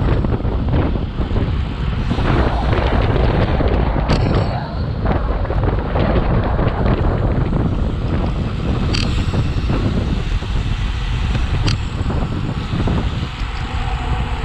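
Wind buffeting the microphone of a camera on a moving road bike: a loud, steady rushing, with a few brief ticks.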